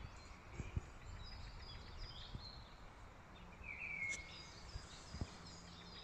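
Faint songbird chirps and short calls over quiet forest ambience, with one clearer falling call about four seconds in. A few soft low thuds come in between, twice close together near the start and once near the end.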